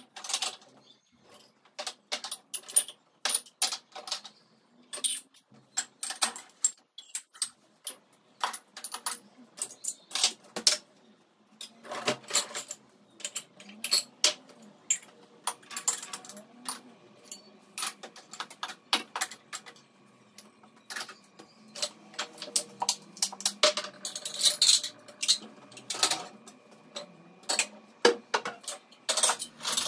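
Dishes, mugs and glasses clinking and knocking, irregular, as a dishwasher is unloaded and the items set onto shelves.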